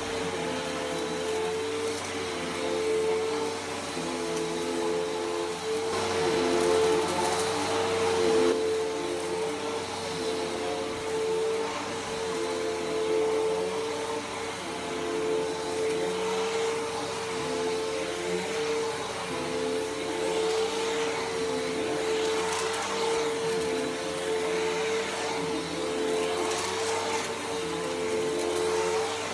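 Bissell PowerForce Helix Turbo upright vacuum running on carpet. Its motor gives a steady hum, and the noise rises and falls slightly as it moves over the carpet.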